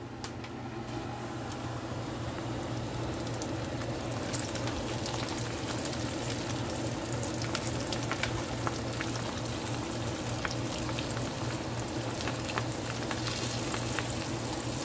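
Battered shrimp deep-frying in a pot of hot oil: a steady sizzle with dense fine crackling, which swells about a second in. A steady low hum runs underneath.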